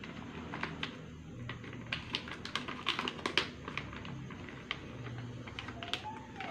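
Irregular light clicks and crackles from hands handling a ginseng root, thickest around the middle, like scattered typing.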